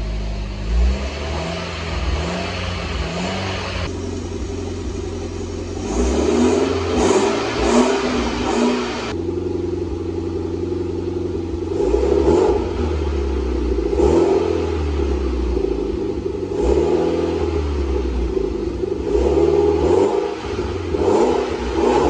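Mitsubishi Lancer Evolution X turbocharged 2.0-litre four-cylinder exhaust, first through the stock muffler, idling and then revved. After a cut about nine seconds in, it plays through the Private Label Mfg. full titanium cat-back, idling with a series of short revs.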